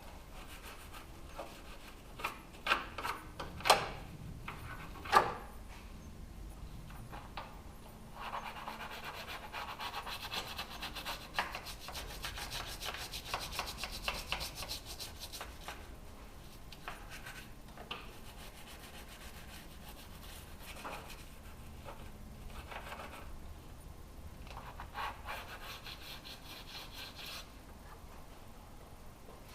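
Hand tools scraping and prying at a car's windshield trim and its brittle, nearly 50-year-old caulking, with a few sharp clicks in the first few seconds and a long stretch of steady scraping after that.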